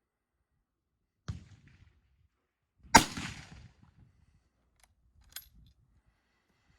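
A single shot from a 1919 Rigby bolt-action rifle in .275 Rigby (7x57), a sharp crack about three seconds in with a short echoing tail. Quieter sharp knocks come about a second before it and a couple of faint clicks follow.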